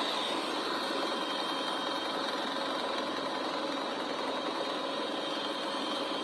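Steady engine noise with a few faint, steady whining tones.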